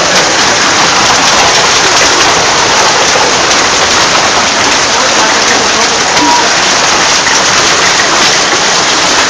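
Heavy hailstorm: hailstones pelting down in a dense, loud, steady rush of noise.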